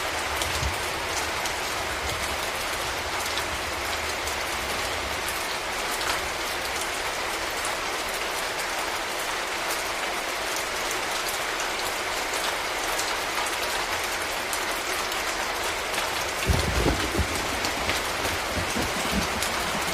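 Steady rain falling, an even hiss dotted with the ticks of single drops. A few low thumps come about three-quarters of the way through.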